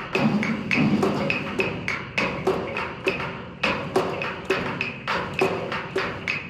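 Roll-off steel dumpster played as a percussion instrument, its walls struck in a steady rhythm of about three hits a second, each hit ringing briefly.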